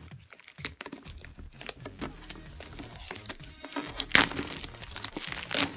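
Plastic shrink-wrap being torn and peeled off a cardboard box, crinkling and crackling irregularly, loudest a little past four seconds in.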